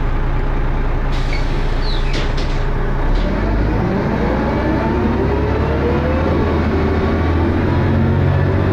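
Dennis Arrow double-decker bus engine heard on board, running loud, with a few short high squeaks in the first few seconds. It then rises steadily in pitch from about four seconds in as the bus pulls away, and levels off near the end.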